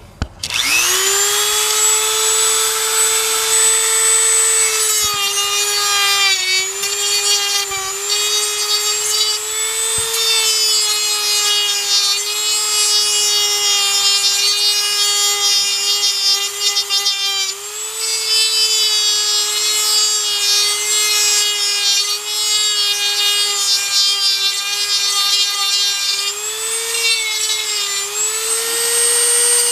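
Small high-speed power tool, such as a rotary cutter, starting up and winding to speed, then cutting away part of the car's dash opening to make room for a double-DIN stereo. Its steady high whine sags in pitch while it bites into the material and climbs back each time it is eased off, about three times.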